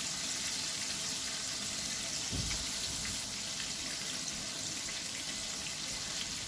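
Breaded chicken strips deep-frying in hot oil in a pan: a steady bubbling sizzle, about two minutes into frying on the first side. A soft low bump about two and a half seconds in.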